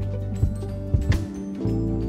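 Instrumental background music with sustained notes and a steady beat.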